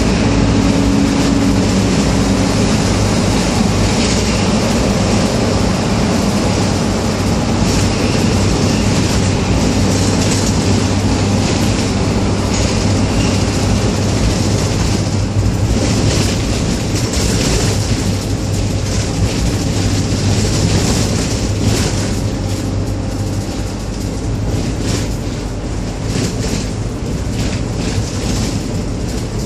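Engine and road noise inside a moving minibus's cabin, a steady low drone with road rumble. It is loud while driving through a road tunnel and a little quieter in the last few seconds out on the open road.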